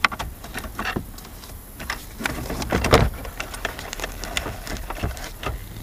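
Scattered clicks and rustling as gloved hands work plastic wiring connectors and a wire harness under a car dashboard, with a louder knock about three seconds in.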